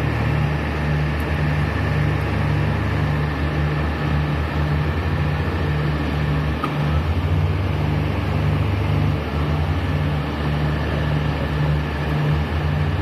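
Diesel engines of a Komatsu WA100 wheel loader and a dump truck running steadily, with a low throbbing pulse about twice a second, while the loader works to load the truck.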